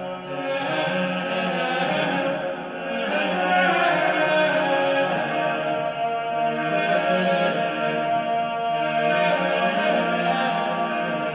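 A choir singing in long held notes that move slowly from chord to chord.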